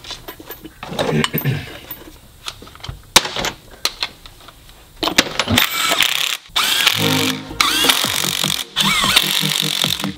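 Metal clicks of bolts being handled and threaded into a Subaru R180 differential's rear cover, then from about five seconds in a cordless electric ratchet running in short bursts, its motor whining up and down, as it drives the cover bolts down.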